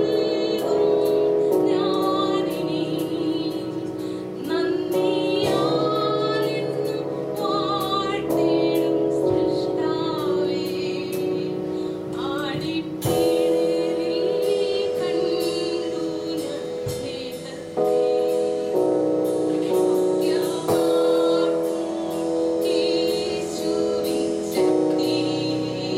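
Live gospel worship music: keyboard chords under a singing voice with a wavering vibrato, over a steady beat.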